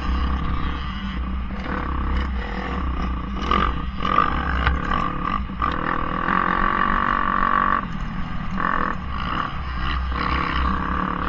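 Dirt bike engine heard on board while riding a motocross track, its note rising and falling with the throttle. A long, high, hard-revved run about six seconds in cuts off sharply as the rider backs off.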